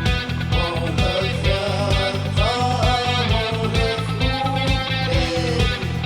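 Electric guitar recorded direct into the line, playing a melody with sliding notes over a rock backing track with a steady drum beat and bass.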